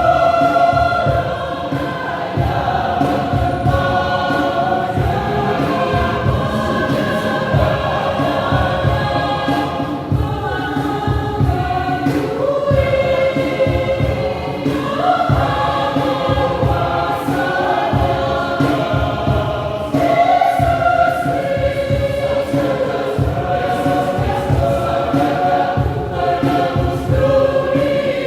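Mixed church choir singing a hymn in parts, voices held on sustained chords with a steady low accompaniment underneath.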